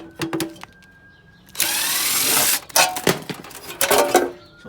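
A hand-held power tool whirs loudly for about a second, then metal parts clatter and knock several times as the casing of an old power supply is taken apart.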